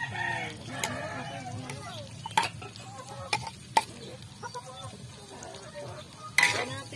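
A metal spatula stirs pork and freshly added sliced liver in a steel wok over a wood fire. The food sizzles lightly, the spatula clinks sharply against the pan several times, and there is a louder clatter near the end.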